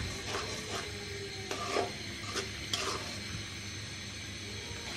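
Onion paste sizzling faintly in oil in a metal karahi while a metal spatula scrapes and clicks against the pan. The scrapes come irregularly through the first three seconds and thin out after that.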